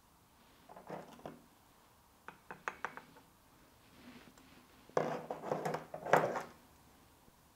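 Handling sounds from tying a tree into a small glazed ceramic bonsai pot with metal pliers: a few light clicks of the pliers on the tie wire, then a louder stretch of knocking and scraping about five seconds in.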